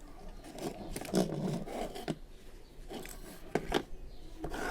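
Handling noises on a workbench: scraping and rubbing with a string of short, sharp clicks.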